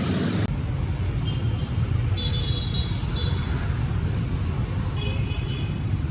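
Street traffic: a steady low rumble of passing vehicles, with a few short high chirps about two seconds in and again near the end.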